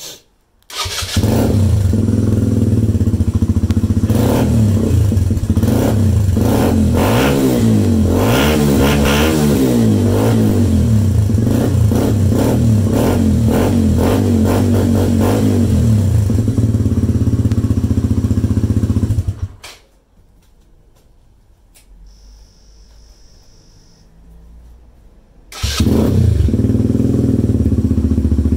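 Suzuki Van Van's single-cylinder four-stroke engine starting about a second in and running through a Black Widow full stainless exhaust with its baffle fitted, blipped up and down several times, then stopping about two-thirds of the way in. After a few quieter seconds with a brief faint high tone, the engine is heard running again near the end, now with the exhaust baffle removed.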